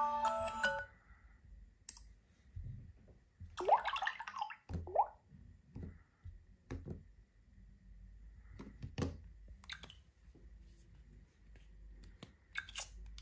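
A phone's chiming alarm melody cuts off about a second in. Then come scattered clicks and taps of phones being handled and a touchscreen being tapped, with two short gliding blips around four and five seconds in.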